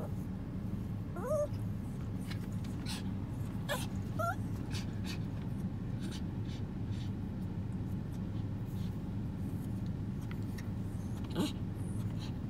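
Small white long-haired dog whining in a few short rising whimpers while being tickled with chopsticks: one about a second in, two around four seconds, and one near the end. Scattered light clicks and a steady low hum sound underneath.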